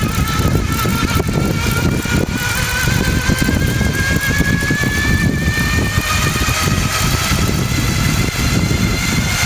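Ecospeed Electric Mountain Drive motor on a Trice tadpole trike whining under throttle on a hill climb, its pitch rising slowly and steadily as the trike accelerates uphill. A steady low rumble runs underneath.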